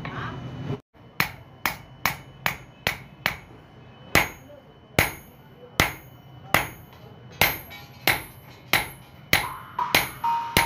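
Hammer blows on red-hot steel on an anvil, forging a sickle blade: a quick run of strikes about a second in, then steady strikes a little under a second apart, each with a short metallic ring.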